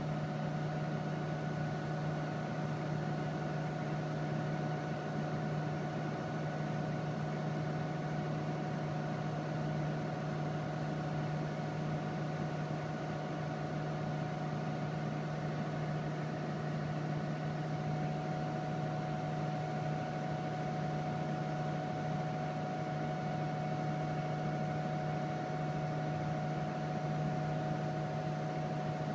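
Steady machinery hum inside a wind tunnel test section: a constant low drone with a few higher steady tones over an even hiss, with no change in speed or level.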